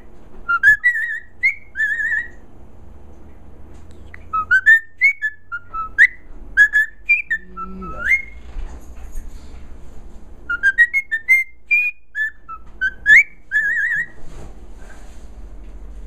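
Cockatiel singing: short whistled notes that rise and fall, sung in three phrases with pauses between them.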